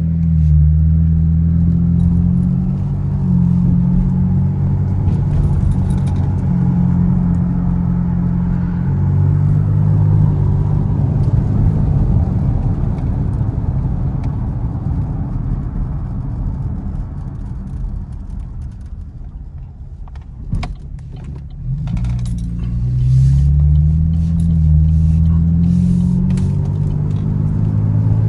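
A 500-horsepower Camaro's engine and exhaust rumbling as it drives, revs climbing and dropping through the gears. It eases off to its quietest about twenty seconds in, with a sharp click, then accelerates again with the revs sweeping up.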